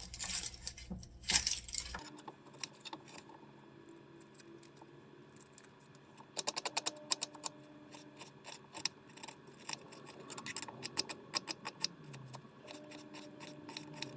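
Knife chopping onion on a cutting board: a series of sharp taps, scattered at first, then in quick runs through the middle.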